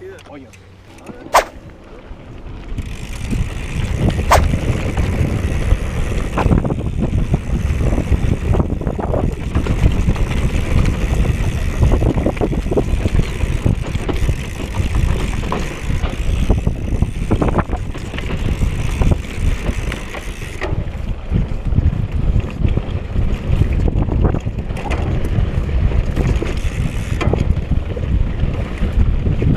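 Mountain bike riding down a rough dirt trail, heard from a camera on the rider: a heavy, continuous rumble of wind on the microphone and tyres and frame rattling over the ground, with a few sharp knocks from bumps. It is quieter for the first two seconds, then loud as the bike picks up speed.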